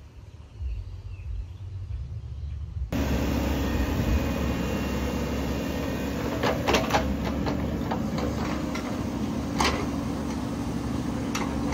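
Mini excavator's diesel engine running steadily while it digs a trench, with several sharp clanks and scrapes of the bucket in dirt and rock from about six seconds on. The first three seconds hold only a low rumble before the engine sound comes in suddenly.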